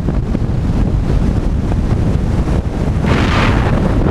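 Wind buffeting the microphone of a camera mounted on the outside of a moving car at highway speed, over a steady low road rumble. About three seconds in a louder hiss swells briefly and fades.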